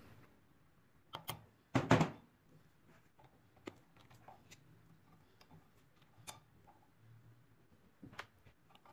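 Small metal parts of a rusty pistol's lock mechanism being worked apart in a vise with a pin punch: scattered sharp metal taps and clicks, the loudest two close together about two seconds in.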